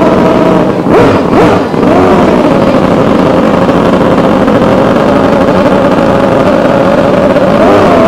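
Outboard racing hydroplanes running at speed: their high-pitched two-stroke outboard engines run flat out, the pitch dipping and climbing twice in the first two seconds, then holding nearly steady.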